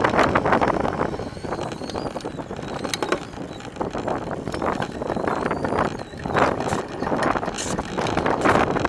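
Azonic B-52 full-suspension mountain bike ridden along a paved street: tyre and road noise, wind buffeting the frame-mounted camera's microphone, and scattered clicks and rattles from the bike, with louder gusts in the second half.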